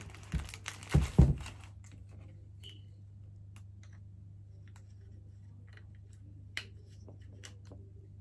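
Handling of a salt lamp and its power cord: a few knocks and rustles in the first second or so, then scattered small clicks as fingers work a small fitting on the cord. A low steady hum runs underneath.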